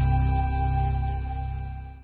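Soft intro music: a held chord over steady low notes, fading out near the end.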